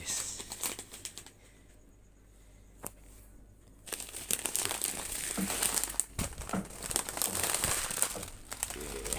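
Plastic crinkling and rustling as it is handled, with a quieter pause of a couple of seconds and a sharp click near the start, then dense crinkling again from about four seconds in.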